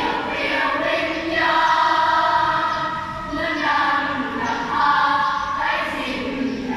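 Primary-school children's choir singing in two-part harmony, holding long notes that move to new pitches every second or two.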